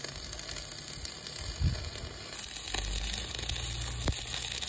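Electric arc welding: the arc crackling and sizzling steadily as a steel rebar strip is welded onto the worn edge of an excavator's track frame, with a couple of brief low thumps.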